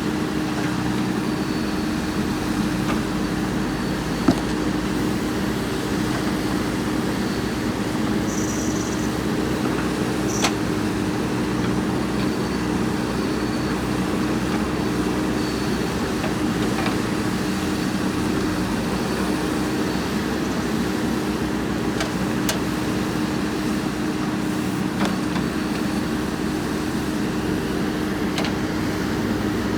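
JCB backhoe loader's diesel engine running at a steady speed, with a couple of sharp knocks and a faint squeak along the way.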